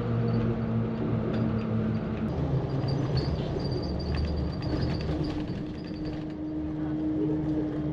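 Route bus running along the road, heard from inside the cabin: a steady engine drone over road noise. The engine note shifts about halfway through, with a higher tone holding steady to the end.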